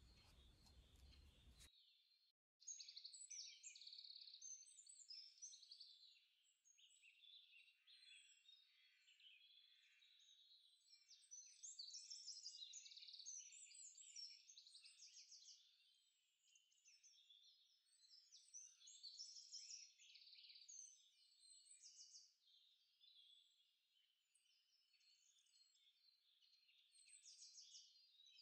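Faint chorus of many small birds chirping and twittering, with no low sounds under it. A short break about two seconds in.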